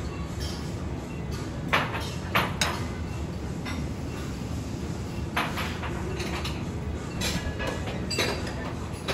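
A handful of sharp clinks and taps from kitchen utensils and dishes being handled at a food-prep counter, spread irregularly over a steady low background noise of the kitchen.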